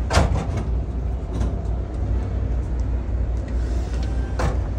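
Diesel bus engine idling with a steady low rumble. Two short bursts of noise cut across it, one just after the start and one near the end.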